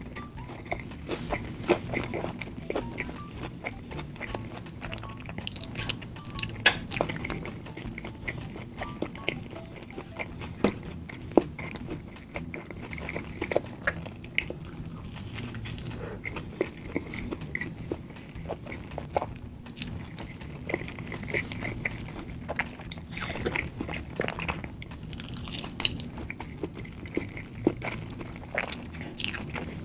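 A person eating McDonald's fast food close to the microphone, biting and chewing with frequent sharp crunches and clicks.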